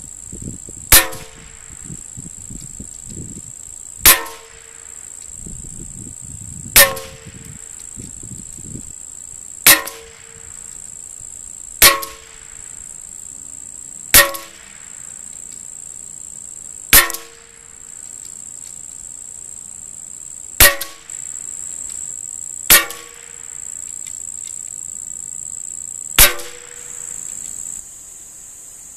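A .22 rimfire target rifle firing ten single shots, one every two to four seconds, each sharp crack followed by a brief ringing.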